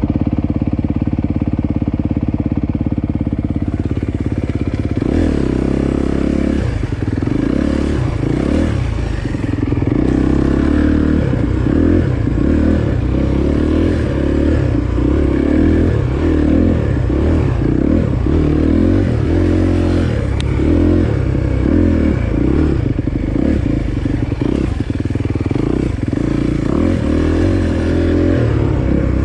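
Dirt bike engine idling steadily, then, about five seconds in, revving up and easing off over and over, roughly once a second, as it rides along a single-track trail.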